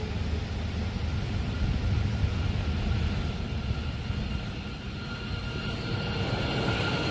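A train running past a level crossing: a steady low rumble from the locomotive and wagons, swelling about two seconds in and easing off a little near the middle.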